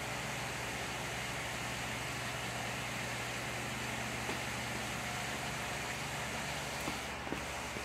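Steady background hum and hiss, with a few light clicks in the second half.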